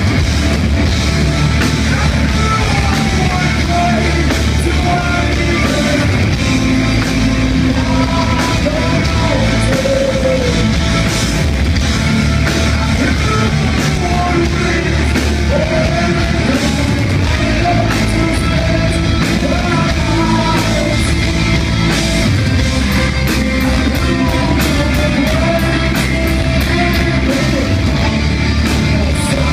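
Heavy metal band playing live: distorted electric guitars, bass and drums with sung vocals over them, loud and without a break.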